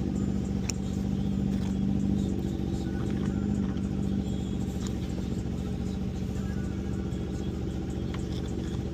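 A steady mechanical drone with a constant low hum runs under a few faint, scattered metal clicks. The clicks are a screwdriver working a motorcycle brake caliper, pushing its piston back in.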